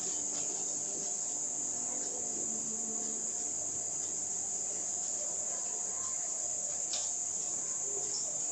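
Crickets chirping in a steady, unbroken high trill.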